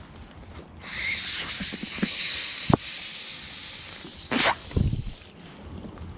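Rustling and rubbing of a crushable soft-plastic goose decoy handled right against the microphone, with a few sharp clicks. A heavier knock and thump come about four and a half seconds in.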